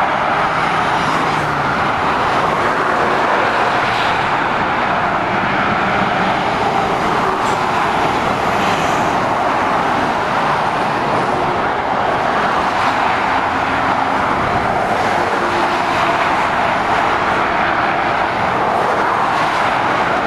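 Steady road traffic: lorries and cars passing on a trunk road, heard as an even, continuous roar of tyres on tarmac with no single vehicle standing out.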